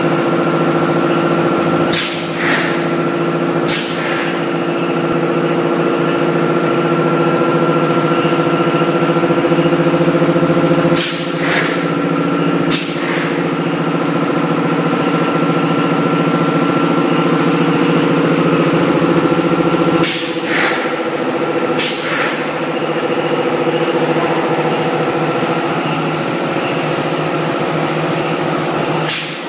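ZT-F1000 pulp-moulding egg tray machine running, a loud steady mechanical hum with several held tones. Short hisses come three at a time, about every nine seconds.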